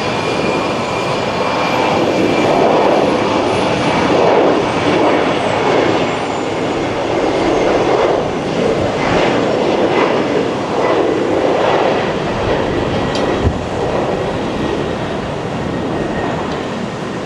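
Aeromexico jet airliner taking off, its engines running at takeoff power with a high whine that falls in pitch over the first few seconds.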